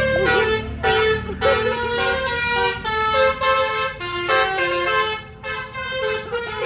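A bus's basuri 'telolet' multi-tone air horn plays a tune of stepped notes, each note held briefly before jumping to the next, over the low rumble of the bus engine.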